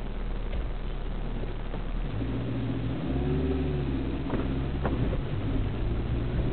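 Vehicle engine pulling away and accelerating about two seconds in, its tone rising and then holding, over steady road noise. Two brief sharp sounds come shortly after the middle.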